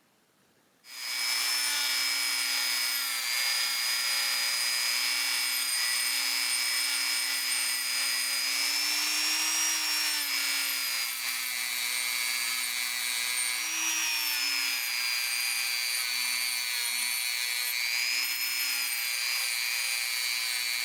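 Electric motor spinning a brass wire wheel, which is cleaning the knurling on a brass pocket-tool handle. It starts up about a second in and runs steadily with a humming tone whose pitch dips and recovers slightly at times.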